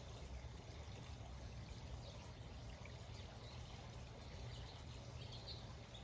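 Faint steady outdoor background noise with a low rumble underneath, and a few faint bird chirps near the end.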